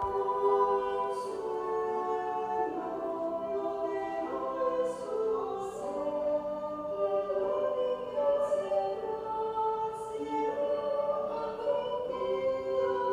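Slow choral music: voices singing long held notes that move from chord to chord, with a few soft 's' sounds of sung words.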